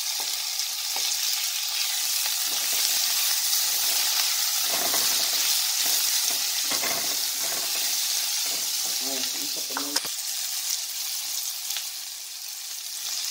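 Diced onion and bacon sizzling in hot bacon fat in a stainless steel pan, with a steady hiss. A spatula stirs and scrapes through it several times around the middle, and there is one sharp click about ten seconds in.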